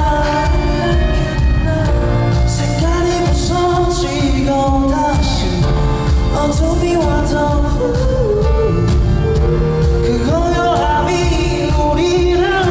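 Male singer singing live into a handheld microphone over a live band, with bass guitar, keyboards and a steady drum beat.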